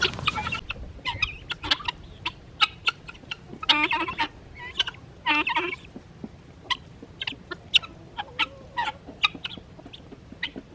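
Mixed poultry flock of chickens, guinea fowl and a turkey clucking and calling as they crowd in to eat fresh feed: many short, sharp clucks, with a few longer calls about four and five and a half seconds in.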